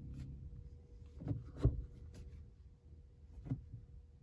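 Car cabin with a low steady rumble and about five soft knocks and clicks, the loudest about a second and a half in.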